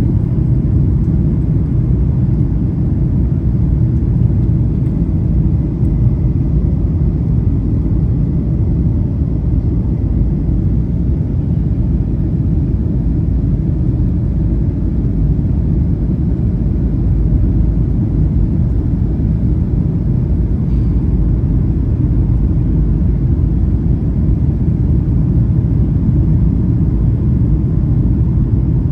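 Steady low rumble of engine and airflow noise inside the passenger cabin of a Boeing 737-800 airliner.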